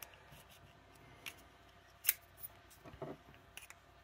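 Small clicks and scrapes of a steel knife blade working against the hard plastic case of a car key fob as the button insert is pried loose; a few scattered ticks, the sharpest about two seconds in.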